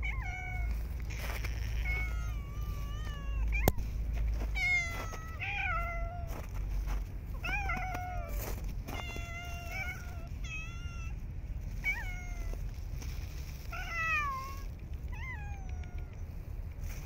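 Stray-cat meowing: a dozen or more short, high meows one after another, many rising then falling in pitch. One sharp click about three and a half seconds in.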